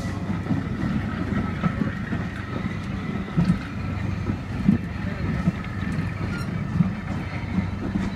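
Vintage wooden-bodied railway passenger carriages rolling past as a steam train pulls out: a steady low rumble of wheels on rail with irregular knocks and clunks over the rail joints.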